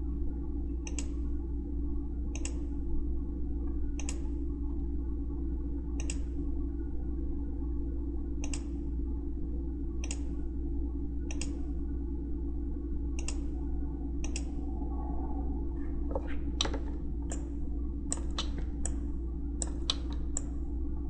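Computer mouse clicking: single clicks every one to two seconds, coming faster and closer together in the last few seconds, over a steady low electrical hum.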